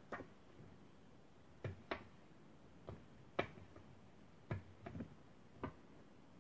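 Ballpoint pen tapping and pressing on sheets of paper over a wooden tabletop, with paper being handled: about nine light, irregular taps.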